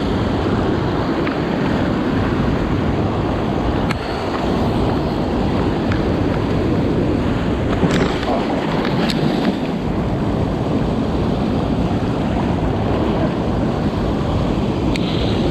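Loud, steady rush of a small mountain stream and waterfall close to the microphone, with a couple of faint clicks about halfway through.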